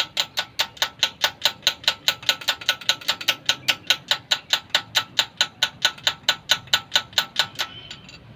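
Rapid, evenly spaced mechanical clicking, about six clicks a second, that stops about seven and a half seconds in.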